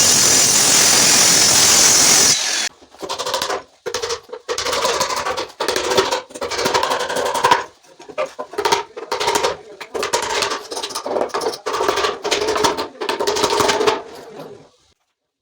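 A power tool working wood: a loud, steady hissing rasp for about two seconds, then a long run of short on-off bursts, each with a steady whine, stopping just before the end.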